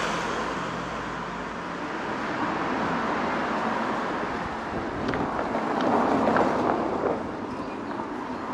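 Outdoor street ambience with a car driving past, swelling to its loudest about six seconds in and then fading, with some wind on the microphone.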